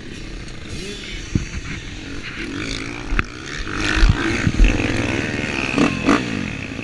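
Dirt-bike engines running close by, with the pitch wavering in the second half as the throttle is blipped. Several sharp thumps and knocks come from a rider handling and mounting a bike.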